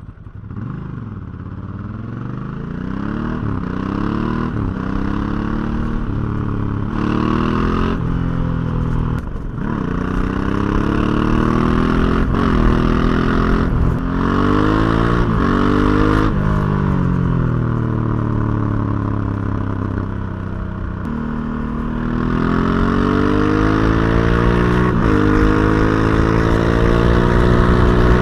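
Ducati Hypermotard 1100S air-cooled L-twin on its stock exhaust, accelerating hard through the gears: the engine note climbs quickly and drops at each upshift, several times in a row. About two thirds of the way in the engine eases off and falls away briefly, then pulls up again in one long, steady climb near the end.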